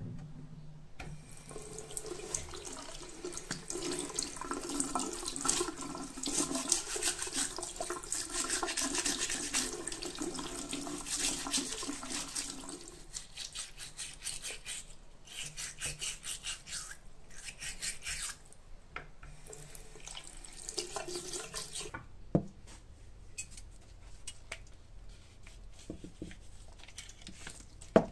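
Tap water running into a sink while a rubber walking-stick ferrule is scrubbed under the stream with quick rubbing strokes. The running water stops about halfway through, and quick scrubbing strokes go on for several seconds. Then it goes quieter, with one sharp knock.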